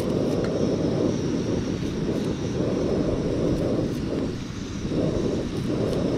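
A steady low rumble, with a few faint clicks from a kitchen knife slicing through ginger held in the hand.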